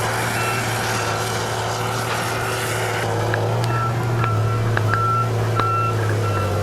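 Heavy machine's diesel engine running steadily, with a backup alarm beeping repeatedly from about halfway in, roughly once or twice a second, as the machine reverses.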